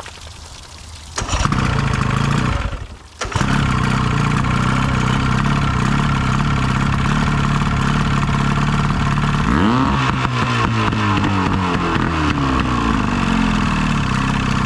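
Old boat motor, not run for at least three years and fed from an auxiliary fuel tank, starting about a second in, dropping out briefly, then catching and running steadily. About ten seconds in it revs up and settles back down.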